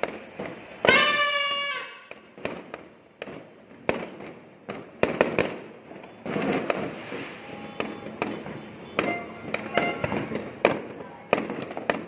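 Fireworks and firecrackers going off in quick, irregular succession, a steady run of sharp bangs and cracks. About a second in, the loudest sound is a held pitched tone lasting about a second that dips at its end, and fainter tones sound later, about nine seconds in.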